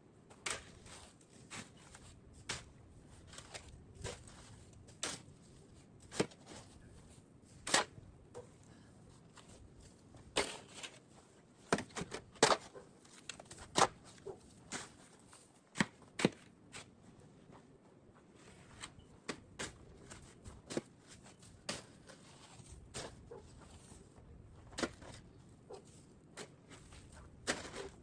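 Snow shovel working at snow and ice, giving irregular sharp knocks and scrapes, several close together around the middle.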